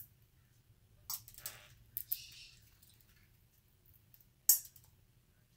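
Canary-winged parakeet cracking black-oil sunflower seeds in its beak: a few crisp cracks and crunches, the sharpest and loudest near the end.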